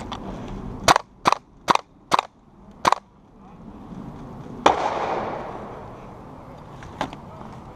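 WE G36K gas blowback airsoft rifle firing five single shots in quick succession, each a sharp crack. A few seconds later comes a louder crack trailed by about a second of rushing noise, then one more shot near the end.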